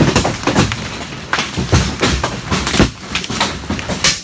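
Hailstones of about baseball size hammering a metal barn roof and the ground outside in dense, irregular hits, with a louder crack near the end.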